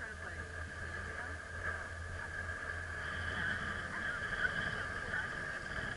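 Chairlift running under a riding chair: a steady high whine over a low hum, with a second, higher whine joining about halfway through.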